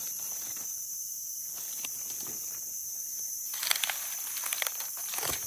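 A steady, high-pitched insect chorus, with crackling rustles of dry leaf litter being handled from about three and a half seconds in until near the end.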